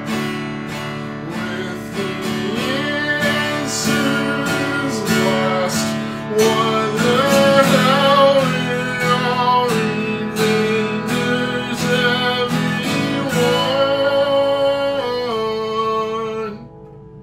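Acoustic guitar strummed with a man singing along. Near the end the song finishes and the music stops suddenly.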